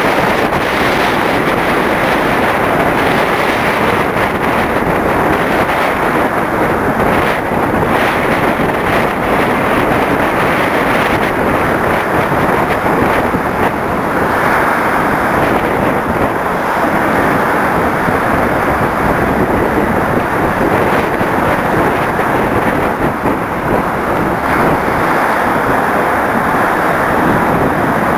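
Strong wind buffeting the microphone over the rush of rough sea and foaming wake along a catamaran's hulls: a steady, loud rushing noise.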